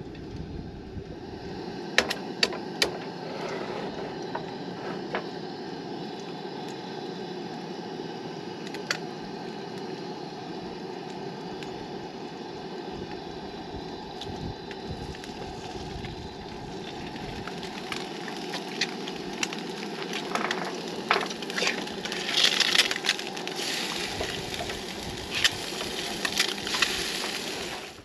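Food frying in a pan on a propane camp stove: a steady burner hiss and sizzle that grows louder and crackles in the last third, with a few sharp clicks and taps of the pan and utensils near the start.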